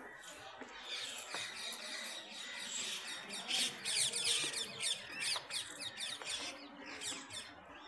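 Many small birds calling at once: a dense chorus of quick, high, falling calls, busiest around the middle.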